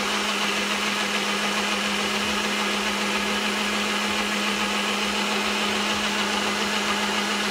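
Single-serve bullet-style blender running steadily, puréeing melon chunks into a smooth liquid. Its motor hums with one constant low tone.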